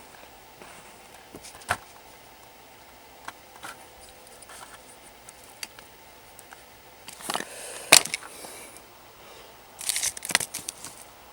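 Small items and packaging being handled: scattered light clicks and brief rustles, with a sharp click about eight seconds in and a short burst of rustling near the end.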